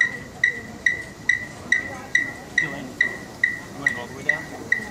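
Electronic metronome beeping through a loudspeaker at a steady tempo, a little over two short, high beeps a second, setting the marching tempo. Faint crowd chatter underneath.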